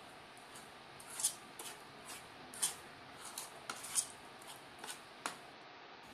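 Spoon scraping and clicking against the side of a bowl while stirring thick gram-flour batter: short, irregular scrapes, the sharpest about a second and a quarter, two and a half, four, and five and a quarter seconds in.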